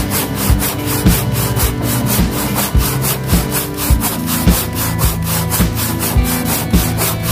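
Tjap Mata handsaw cutting through wood in continuous back-and-forth strokes, the teeth rasping in the kerf. Background music with a steady beat plays under it.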